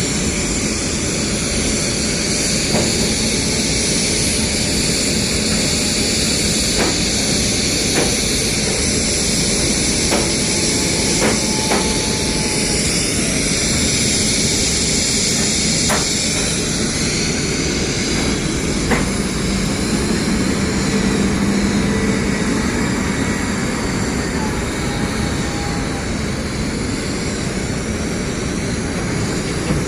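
Steady machine drone with a high hiss, from a pipe-welding job during GTAW (TIG) root welding of a stainless pipe, with a few light ticks scattered through.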